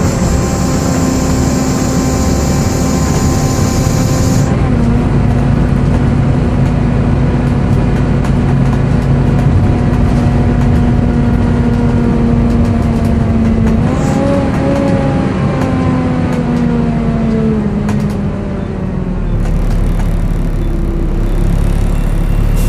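Volvo B7TL double-decker bus under way, its engine and cooling fan running with the loud, screechy 'hoover' whine of the fan. A high hiss stops about four seconds in. The pitch jumps up about two-thirds of the way through and then slides slowly down over several seconds.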